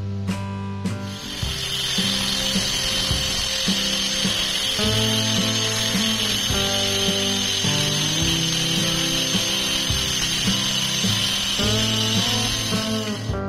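A grinder starts about a second in and runs with a steady high whine while its abrasive disc grinds the end of a thin rusty steel reinforcing bar. It stops abruptly near the end.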